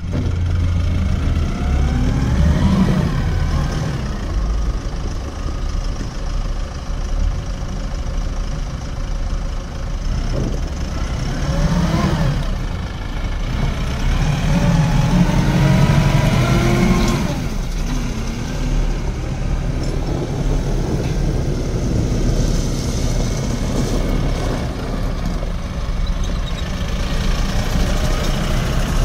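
Arbos P5130 tractor's diesel engine running as the tractor drives, its pitch rising and falling a few times as it speeds up and eases off.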